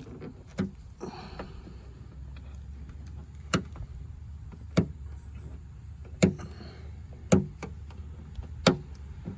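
Plastic scraper working hardened dent-puller glue off a car's painted body panel: a series of sharp clicks, about one every second or so, with faint scraping between them over a low steady rumble.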